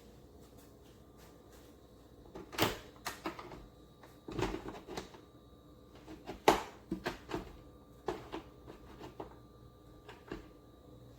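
Irregular knocks and clatters of things being handled and set down in a kitchen, the loudest about two and a half and six and a half seconds in.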